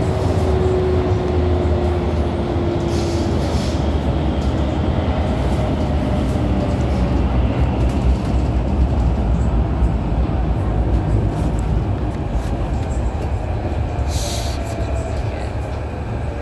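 Inside a KHI/CRRC Qingdao Sifang T251 metro train car: a steady low rumble runs throughout. Over the first three seconds a motor tone falls gently in pitch as the train slows. Two short hisses come about three seconds in and again near the end.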